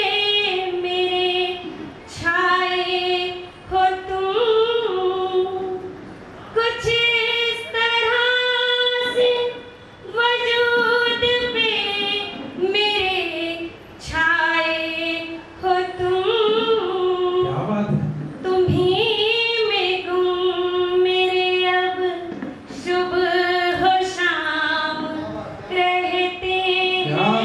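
A woman singing a Hindi romantic verse unaccompanied, in long held notes with short breaks for breath between phrases.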